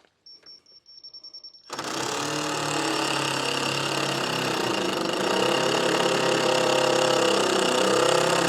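A steady high electronic beep for about a second and a half, then a power drill/driver running hard for about seven seconds as it drives a long screw into timber framing.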